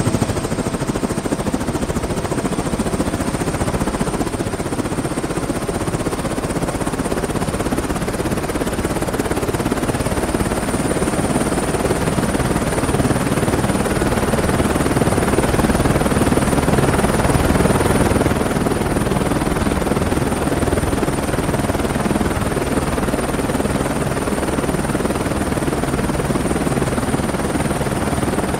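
Helicopter sound effect: steady rotor and engine noise under a thin high whine, growing a little louder about halfway through and easing back.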